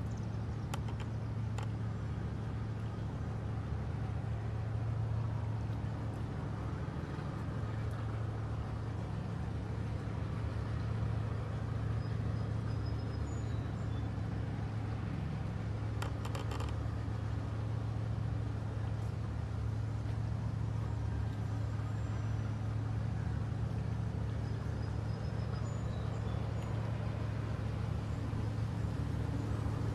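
Steady low engine drone of the large car carrier ship Freedom Ace as it moves slowly past at close range.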